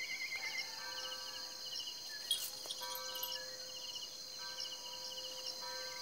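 Crickets and other insects chirping at dusk: a steady high whine under repeated quick chirping trills, with a lower steady tone that comes and goes every second or so. A single sharp click sounds about two seconds in.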